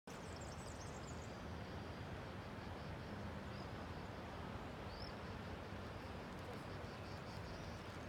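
Steady outdoor ambience with a low hum, and short high bird chirps in the first second and a half, with another single chirp about five seconds in.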